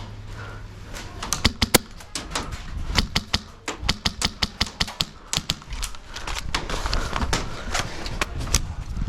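Airsoft guns firing: sharp, irregular clicks and snaps, several a second, starting about a second in.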